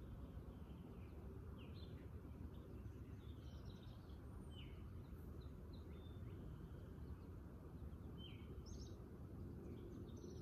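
Faint outdoor ambience: a steady low background rumble with scattered short bird chirps and brief high whistled notes from songbirds.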